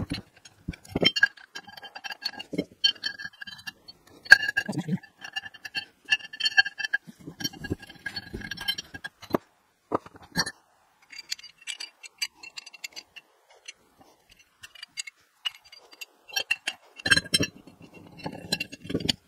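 Metal clinks, knocks and rattles as a double cardan drive shaft coupling yoke and U-joint cross are turned and fitted by hand, with a high squeaking tone that comes and goes through much of it.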